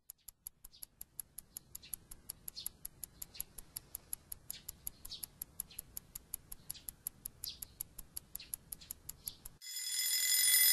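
Clock ticking quickly and evenly, about five ticks a second. Near the end an alarm clock starts ringing and grows louder.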